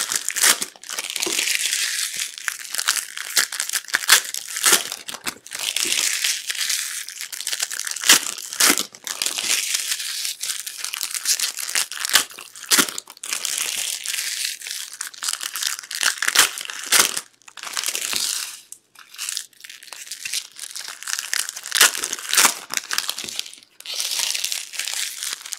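Foil trading-card pack wrappers being torn open and crinkled by hand, a continual crackling rustle with many sharp crackles, along with the cards being handled.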